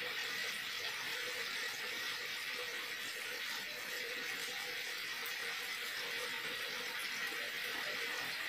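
Carrot strips simmering in sweet and sour sauce in a frying pan on a gas stove: a steady hiss with a faint steady hum.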